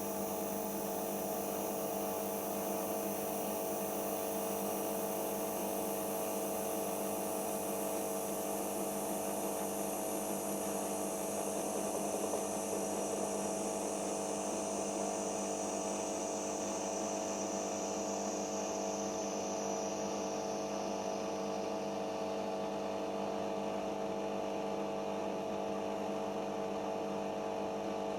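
Siemens Serie iQ WIQ1430 washing machine running steadily during its final-spin stage, a constant machine hum with a faint high whine that slowly falls in pitch over the first twenty seconds or so.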